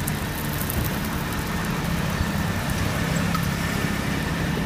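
A steady low engine hum, like an idling motor, with a few faint ticks over it.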